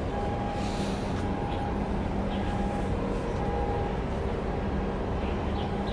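Steady low drone of a large container ship's engines passing close by, with hum tones that fade in and out.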